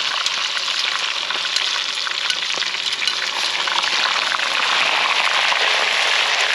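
Hot oil frying potato chips just tipped into the pot, a loud, steady sizzling hiss full of crackling pops as the oil foams up around them and tongs stir them.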